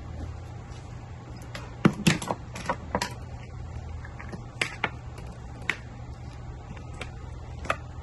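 Hand tools and a cable with metal bullet connectors clicking and knocking against a wooden worktable as they are picked up and handled: a cluster of sharp clacks about two to three seconds in, then single clicks spaced through the rest, over a steady low hum.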